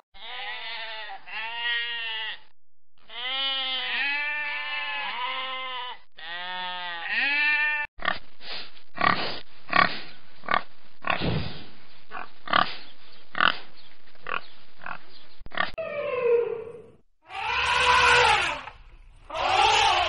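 A run of animal calls. First, monkey calls rise and fall in pitch, repeated for about eight seconds. Then a pen of domestic pigs grunts rapidly and steadily until about three-quarters of the way in. Near the end come two loud calls from an African elephant.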